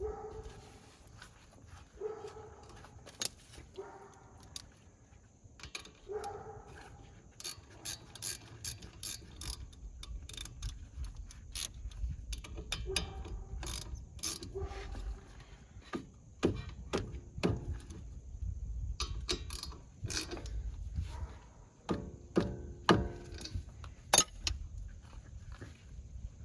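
Ratchet wrench clicking in short runs, with sharp knocks of tools and metal parts, during work on a car's disc brake caliper and pads.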